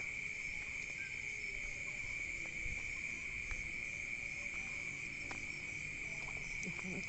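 A chorus of night insects, crickets or similar, making a steady, unbroken high-pitched trill.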